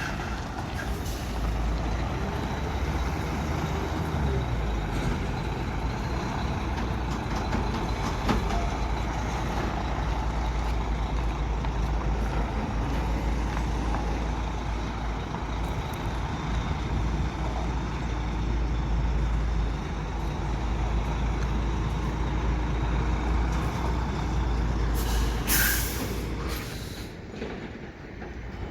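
Heavy diesel machinery engine running steadily with a deep rumble. A short, loud hiss of air comes near the end.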